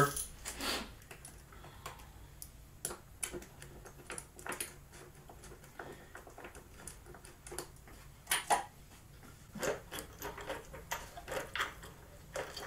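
Irregular metallic clicks and clinks of hand tools working on the engine while the VR6 valve cover's bolts are taken off, with a couple of louder knocks about two-thirds of the way through.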